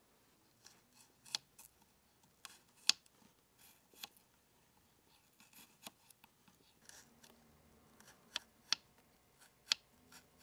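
A miniature kitchen knife chopping carrot into sticks and then small cubes on a tiny cutting board. It makes an irregular run of sharp clicks as the blade cuts through and taps the board, with a few louder strikes among softer ones.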